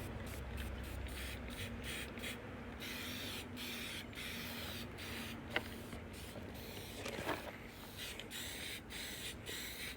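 Aerosol spray-paint can spraying in short, broken hisses that keep cutting in and out: the can is nearly empty and sputtering.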